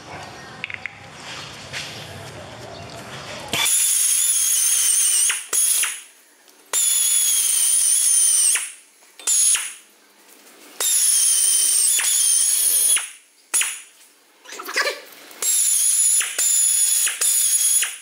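Compressed-air blow gun blasting dust off a brake caliper and carrier. It comes in about six sharp-edged bursts of loud hissing with a high whistle, starting a few seconds in.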